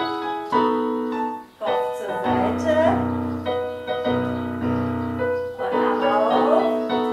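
Piano music for a ballet barre exercise, playing held chords that change every half second to a second.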